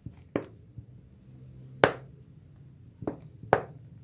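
Kitchen utensils and containers being handled while honey is added to a mixture: about five sharp taps and knocks, the loudest near the middle.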